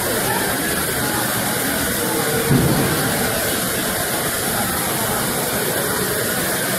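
Flying Scotsman steam locomotive giving off a steady hiss of escaping steam, with one brief low thump about two and a half seconds in.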